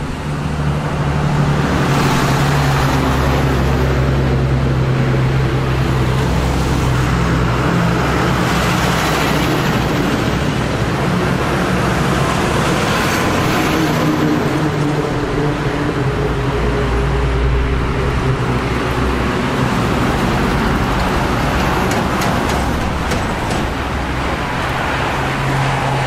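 SY-class 2-8-2 steam locomotive working a loaded coal train: a loud, steady run of exhaust and train rumble.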